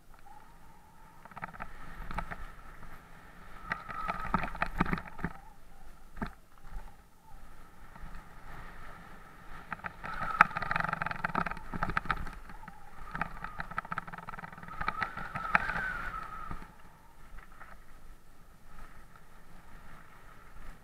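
Downhill mountain bike riding over loose gravel: tyres crunching and the bike rattling and knocking over bumps, with a steady high whirr underneath. It gets louder about four seconds in and again from about ten to sixteen seconds.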